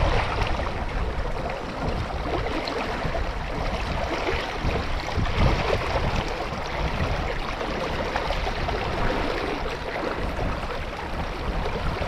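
Water rushing and churning in the wake past the stern of a small sailing yacht under way, a steady hiss and slosh heard close to the water.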